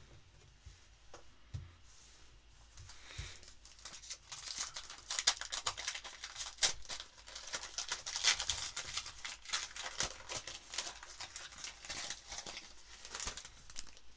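Foil wrapper of a 2021 Donruss basketball card pack crinkling and tearing as it is opened by hand: a dense crackle from about four seconds in, easing near the end. A few soft knocks come before it.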